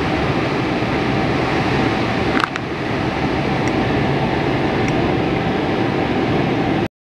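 Steady rushing air and fan hum from a paint booth's ventilation, with one constant tone, and a single brief knock about two and a half seconds in.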